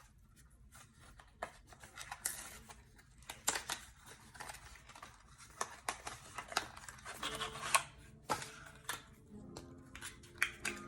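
Lipstick packaging being handled and opened: a run of irregular sharp clicks and crisp cardboard and plastic rustles.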